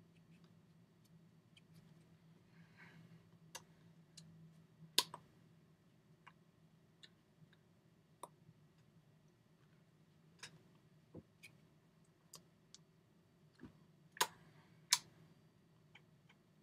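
Faint, irregular clicks and taps from a person's movements while signing, over a low steady hum. The loudest clicks come about five seconds in and as a close pair near the end.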